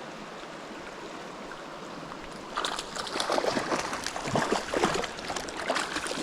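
Creek water running steadily, then about two and a half seconds in a sudden switch to louder, irregular splashing water that continues to the end.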